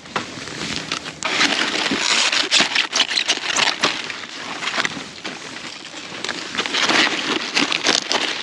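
Cabbage leaves rustling, crackling and snapping as heads are picked by hand: a dense run of crisp cracks and rustles that builds up about a second in.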